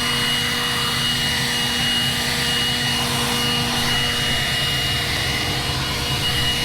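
Combine harvester running steadily: a constant drone of engine and fans with a high, steady whine over it.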